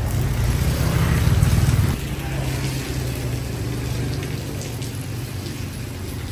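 A car drives past close by on a rain-wet street with steady rain falling; the passing car is loudest in the first two seconds. A steady low hum continues after it has gone.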